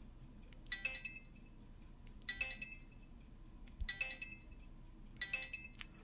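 Samsung SPH-M610 phone's key beeps: four short chiming tones about a second and a half apart, each press of the navigation key answered by a beep from its small speaker.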